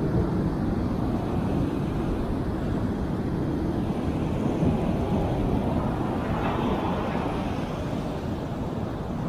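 Rough surf on a sandy beach: a steady low rumble of breaking waves, with the hiss of a wave washing up the sand swelling about six seconds in and fading a couple of seconds later.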